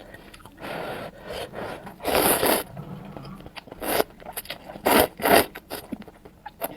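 Spicy noodles being slurped close to the microphone in about five short, loud bursts, with quieter mouth noises between.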